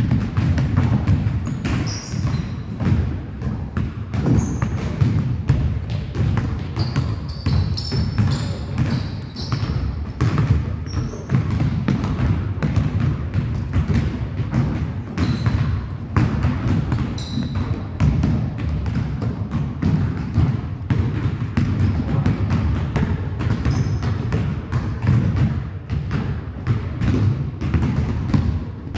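Many basketballs being dribbled on a hardwood gym floor, a constant overlapping patter of bounces echoing in the hall. Short high sneaker squeaks come now and then, mostly in the first half.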